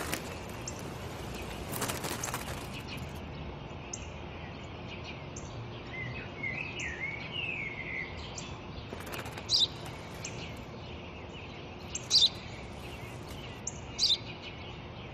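Sparrow chirping: short, high single chirps every couple of seconds, with a brief twittering phrase about six to eight seconds in. There is a short rustle about two seconds in, and a steady outdoor background underneath.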